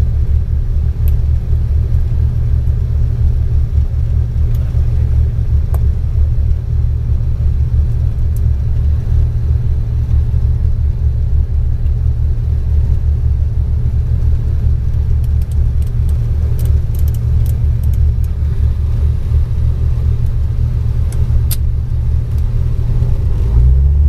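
Cockpit sound of a Cessna 402's twin piston engines during the takeoff roll and lift-off: a loud, steady, low drone.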